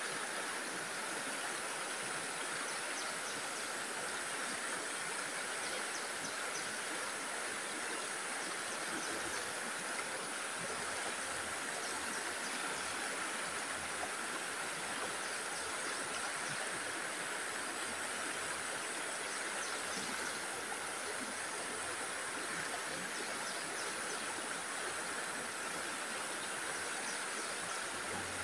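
A forest stream running over rocks: a steady, even rush of water.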